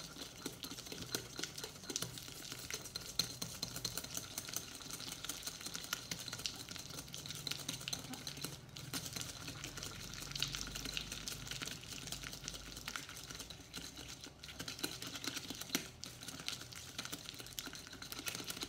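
Hand whisk beating softened butter in a glass bowl, the wires rapidly clicking and scraping against the glass as the butter is creamed.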